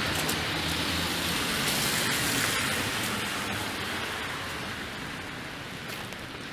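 Steady hiss of freezing rain falling on a wet, slushy city street, mixed with the tyre hiss of passing traffic, fading away over the last few seconds.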